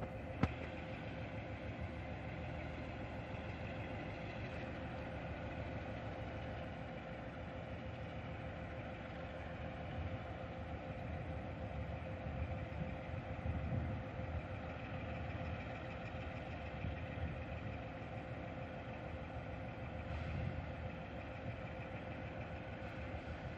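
Diesel locomotive running at idle, a steady engine rumble with a thin steady whine over it, swelling a little twice.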